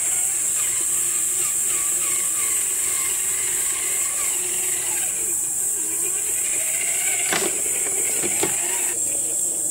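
Traxxas TRX-4 scale RC crawler's electric motor and gears whining, the pitch rising and falling with the throttle as it crawls over rock, with two sharp knocks near the end. A steady high-pitched hiss runs underneath.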